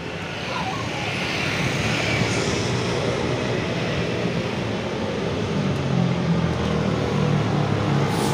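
Wind rushing over a camera microphone carried on a moving bicycle, with road traffic underneath. A steady rushing noise that grows louder over the first few seconds.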